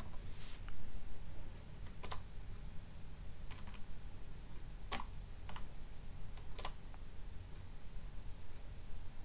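Computer keyboard being typed on slowly: single keystrokes clicking at uneven intervals, about eight in all, over a steady low hum.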